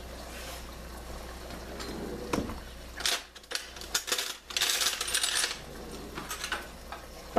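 A metal utensil clinking and scraping against a stainless steel sauté pan of reducing sauce, several sharp clinks from about three seconds in, over a steady hiss.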